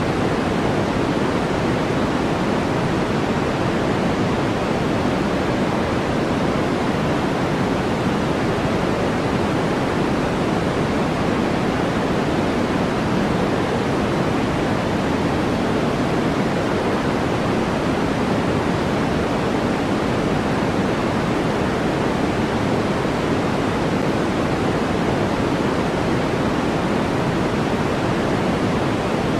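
Steady electronically generated noise of the kind sold as white noise for sleep, an even hiss that does not change, heavier in the lower middle than in the treble.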